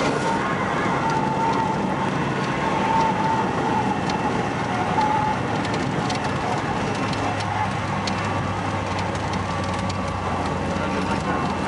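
Cessna 180's six-cylinder Continental O-470 engine and propeller running at low power after touchdown, a steady drone heard inside the cabin. A faint wavering whistle sits over it for the first few seconds.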